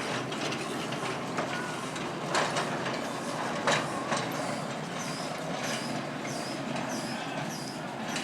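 Miniature railway train running along the track, wheels clicking over the rail joints with a few sharper clacks, and a faint high squeal repeating at a steady pace in the second half.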